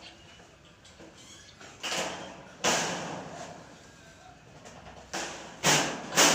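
Five sharp knocks, irregularly spaced, each ringing briefly, the loudest near the end: impacts during work on a steel gate.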